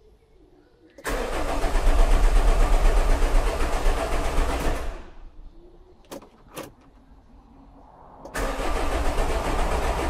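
Common-rail diesel engine of a Nissan Kubistar dCi van cranking on the starter without catching, twice: about four seconds of cranking starting a second in, a couple of clicks, then cranking again from about eight seconds. It turns over but won't start: the fault codes show low fuel pressure, which was traced to injectors leaking back.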